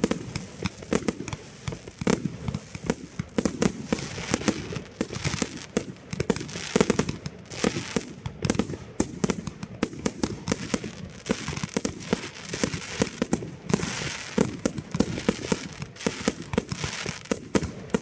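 Fireworks display: aerial shells bursting in a dense, unbroken barrage of bangs, several a second.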